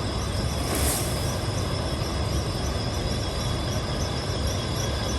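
Steady outdoor background: a constant low rumble under a high, evenly pulsing insect chirping, with a brief hiss about a second in.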